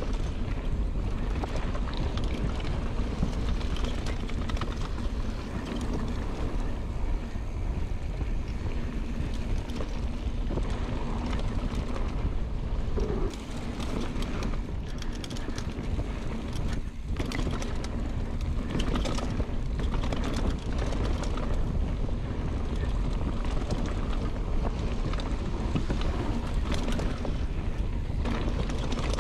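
Wind buffeting the microphone and the rush of a mountain bike's tyres rolling over a dirt flow trail, with frequent short knocks and rattles from the bike over bumps.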